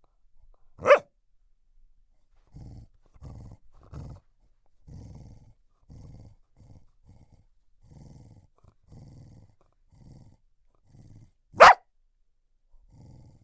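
Australian Cattle Dog growling in a string of short, low growls, broken by two short, loud barks, one about a second in and one near the end.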